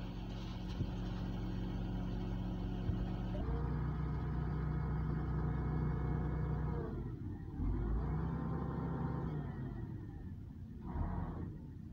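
Boom truck engine running under the load of the UNIC crane's hydraulics. It speeds up about three and a half seconds in and holds there for a few seconds, drops back, speeds up again for about two seconds, and rises briefly once more near the end as the crane levers are worked.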